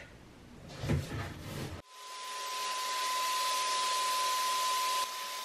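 A few faint knocks and rustles, then about two seconds in a paint sprayer starts spraying paint: a steady airy hiss with a steady whine under it. It builds over about a second and drops a little near the end.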